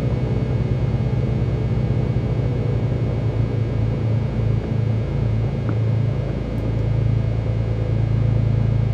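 Cessna 310Q's piston engine running with a steady low drone, pulsing unevenly at first and smoothing out in the second half.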